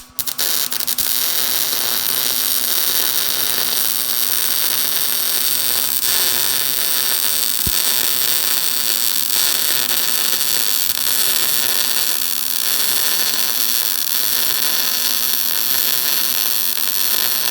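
Electric arc welding on a steel truck frame: one long, continuous weld with a steady crackling sizzle and a low hum, stopping abruptly at the end.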